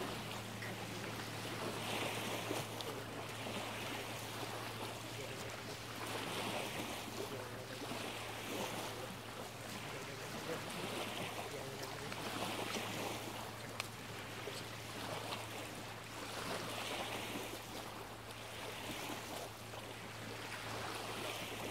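Small lake waves lapping on a gravel shore, the wash swelling and fading about every two seconds.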